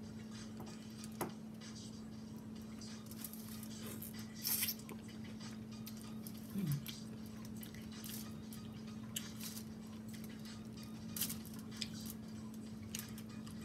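Someone eating sauce-covered seafood with their fingers from a glass bowl: wet squishing and chewing, with scattered light clicks against the bowl, over a steady low hum. About six and a half seconds in there is a short falling "mm".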